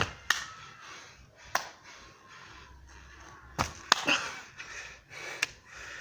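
Scattered sharp thumps and knocks from a man exercising on a concrete driveway, landing from jumps and stepping, with two louder knocks a little past the middle as he comes right up to the recording phone.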